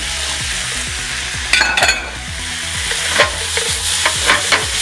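Onions, seafood and king oyster mushrooms sizzling in an oiled frying pan and stirred with a wooden spatula. Sharp clacks and scrapes of the spatula against the pan sound over the steady hiss, with a cluster about a second and a half in.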